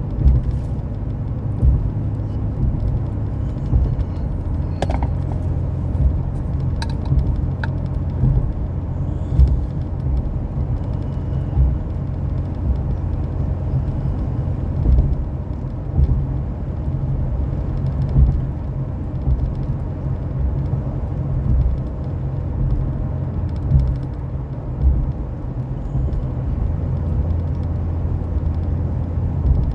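Vehicle driving, heard from inside the cab: a steady low road and engine rumble with frequent small bumps. A few sharp clicks or squeaks come about five to eight seconds in.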